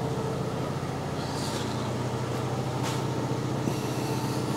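Fiat 500's engine idling steadily, a low even hum.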